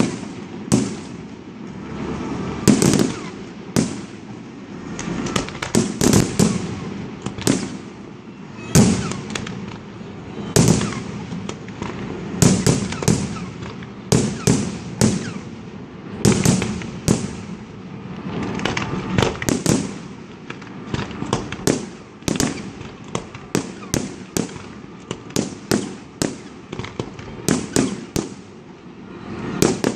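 Aerial fireworks display: a continuous barrage of shell bursts, bangs coming irregularly and at times several a second in quick clusters.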